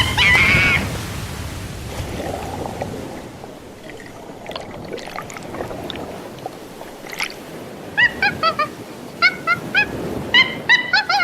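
Sea waves and water sound effect, followed from about eight seconds in by quick runs of short, high squawking animal calls, about four a second, in a cartoon soundtrack.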